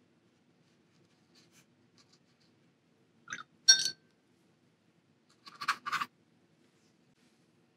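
A paintbrush clinking and scraping against a metal watercolor palette tin as it is dipped and worked in the paint, in two short bursts about two seconds apart, the first with a brief ring.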